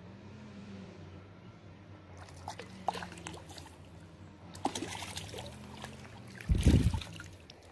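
Water splashing and dribbling in irregular bursts over a low steady hum, with a heavy low thump near the end.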